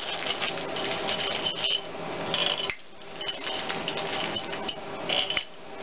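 New steel torque-to-yield head bolts clinking and rattling as they are handled and dropped into the bolt holes of an aluminium cylinder head: a busy run of small metallic ticks, broken by two brief pauses.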